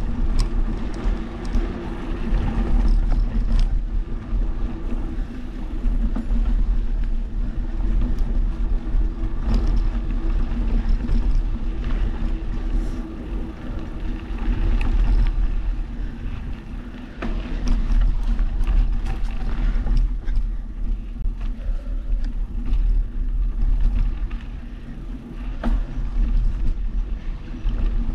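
Mountain bike rolling along a dirt singletrack trail: a steady low rumble of tyres and wind on the camera microphone, with scattered knocks and rattles from the bike over bumps.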